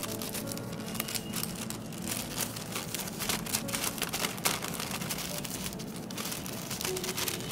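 Thin white paper envelope being handled and folded by hand, rustling and crinkling with many small irregular crackles.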